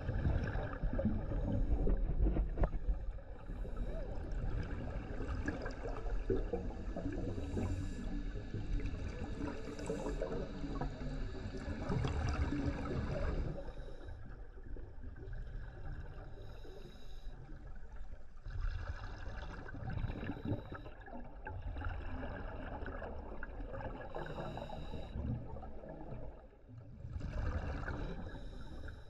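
Scuba diver's exhaled bubbles from an open-circuit regulator, heard underwater: rumbling, gurgling surges that come and go with each breath, with quieter gaps between them.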